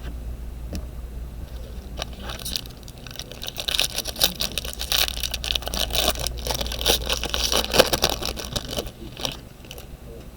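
Baseball trading cards and their pack wrappers being handled: a dense run of rustling, scraping and fine clicking that starts about two seconds in and fades near the end, over a steady low hum.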